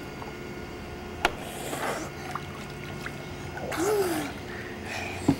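Pool water splashing and sloshing as a child swims up to the pool's edge, with a sharp click about a second in and a short gasp for breath about four seconds in.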